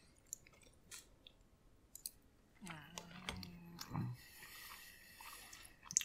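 A person chewing a mouthful of soft microwave penne pasta, with small wet mouth clicks throughout. A short low hum about three seconds in.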